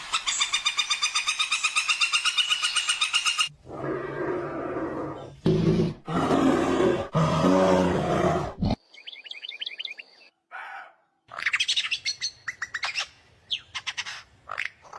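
A string of different animal calls cut one after another: a fast, chattering trill, then a low, rough roar-like call lasting a few seconds, then quick series of high chirps.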